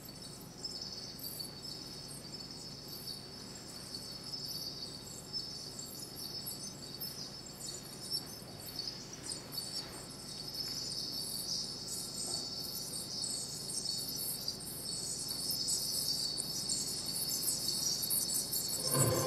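Live electronic music played from laptop software through loudspeakers: a dense, high-pitched, flickering texture that grows gradually louder. Right at the end, a louder, fuller sound comes in underneath it.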